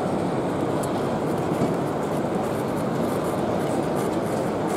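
Steady hubbub of a crowd filling a large exhibition hall, indistinct voices blending into a constant murmur, with a few faint light ticks.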